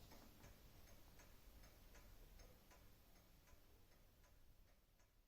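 Near silence with faint, regular ticking, about two ticks a second, over low room hiss, fading out near the end.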